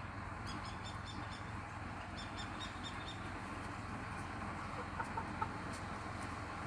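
Chickens clucking and chirping: two quick runs of short, high-pitched chirps in the first three seconds, then a few short clucks about five seconds in.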